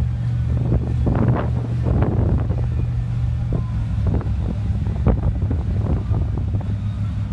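A steady low engine rumble, with irregular gusts of wind buffeting the microphone, the strongest about a second in and again about five seconds in.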